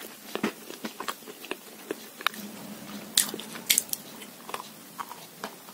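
Chalk and Uzbek clay being bitten and chewed: irregular sharp crunches and crackles, several a second.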